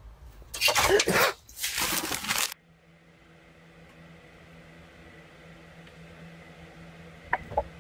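Two cats scuffling, with two loud hissing bursts in the first two and a half seconds, then a faint steady low hum.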